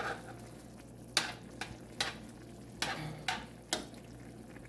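A spoon stirring chicken in a stew pot, scraping and knocking against the pot about six times.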